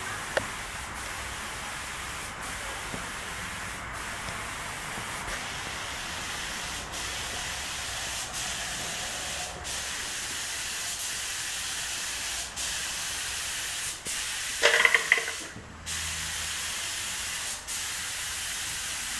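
Compressed-air paint spray gun hissing steadily, with short breaks every one to two seconds. A brief louder, pitched noise about three-quarters of the way through.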